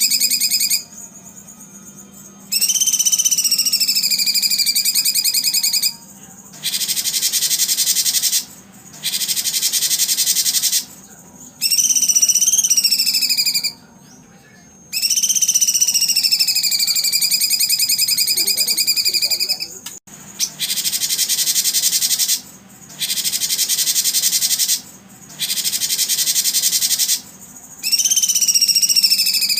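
Songbird song for training competition birds. Loud phrases of one to three seconds follow each other with short pauses, alternating a wavering whistled note with an overtone and a dense, high, buzzy trill.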